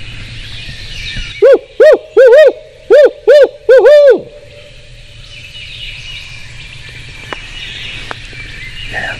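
A hunter's imitation of a barred owl hooting: about eight loud, arching hoots in quick succession, in the "who cooks for you, who cooks for you-all" rhythm, the last one drawn down. It is a locator call meant to make a gobbler gobble back.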